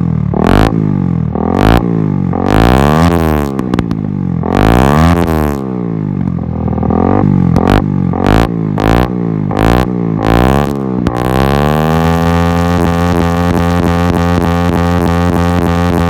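Honda CBR 250R's single-cylinder engine through an Akrapovic exhaust, revved up and down again and again with sharp pops between the blips, then held at a steady high rev for about five seconds before dropping near the end.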